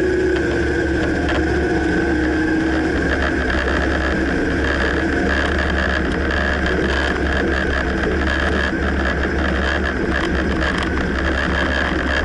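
2009 Dodge Ram on the move, its engine and road noise running steadily with a deep rumble and a steady high whine.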